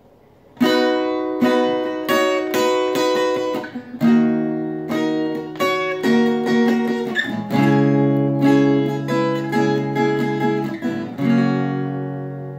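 Solo acoustic guitar playing a song intro in repeated plucked and strummed chords, starting about half a second in. The last chord, struck near the end, is left ringing and fades away.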